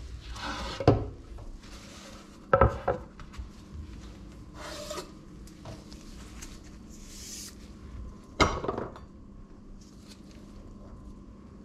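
Bamboo cutting board slid across a kitchen worktop and set down, with rubbing and a few sharp wooden knocks: one about a second in, a pair soon after, and another near the end.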